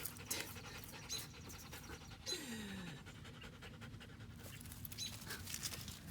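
A dog panting, with a short falling tone about two seconds in.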